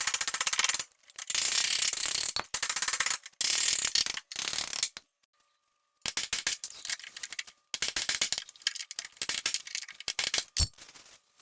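Bursts of rapid mechanical clicking and rattling, with a second or so of dead silence about five seconds in.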